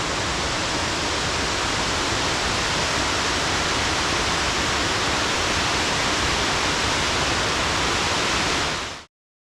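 Steady rushing of Lucifer Falls, a 115-foot waterfall. It cuts off suddenly near the end.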